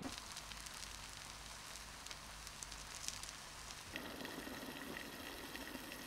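Sliced mushrooms sizzling in a frying pan, a steady crackle. About four seconds in it cuts to broth being ladled and poured through a fine-mesh strainer into a pot.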